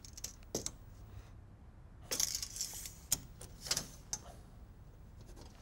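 Pencil marking a plasterboard sheet along a steel tape measure: a few short scratches with light metallic clicks and jingles.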